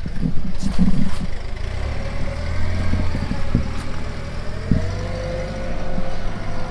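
Tractor engine idling steadily, with a few scattered clunks.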